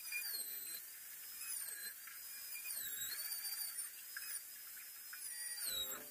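Compact trim router running, its high whine dipping in pitch several times as the bit cuts through the overhanging laminate along the cabinet top's edges, then winding down just before the end.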